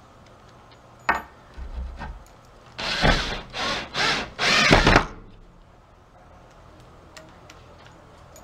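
Power drill driving a screw into wood in four short bursts, the last the longest, after a sharp click about a second in.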